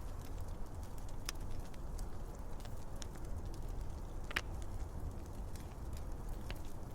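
Fire crackling, with scattered sharp pops at irregular intervals, the loudest about four seconds in, over a steady low rumble.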